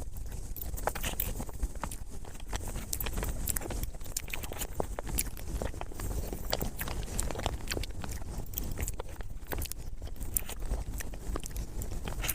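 Close-miked eating of chocolate mousse cake: chewing and mouth clicks, many irregular sharp clicks over a steady low hum.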